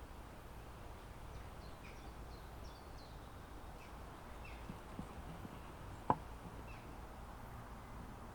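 Faint, scattered bird chirps over a steady low outdoor rumble, with a single sharp click about six seconds in.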